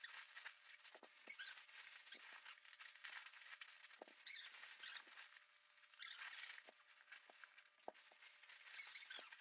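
Black plastic garbage bag crinkling and rustling faintly in irregular spurts as it is squeezed to force its air into an air mattress, with scattered small clicks.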